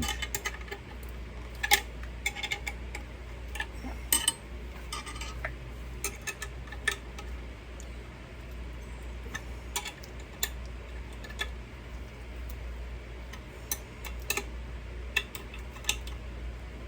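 Irregular metallic clicks and taps of a 7/16 wrench working screws on a fan bracket, with a steady low hum underneath.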